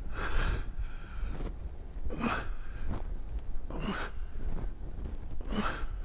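A man breathing hard from exertion: forceful breaths about every one and a half seconds, in time with his hollow-body rocking.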